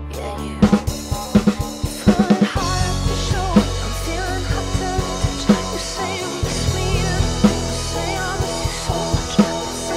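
Acoustic drum kit played along to a slow pop recording with a woman singing over deep bass. A quick run of drum hits fills the first two and a half seconds, then a sparse beat follows with a hard snare hit about every two seconds.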